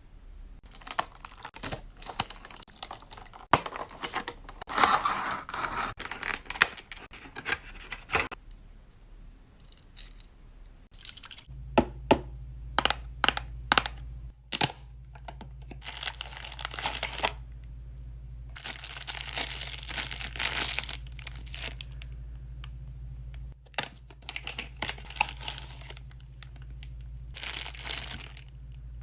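Packaging being torn open and crinkled by hand, in repeated bursts with sharp clicks and taps between them.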